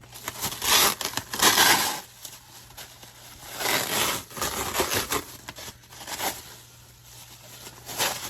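Packaging being torn and crinkled as a new steering wheel is unwrapped, in uneven bursts of rustling with short pauses between them.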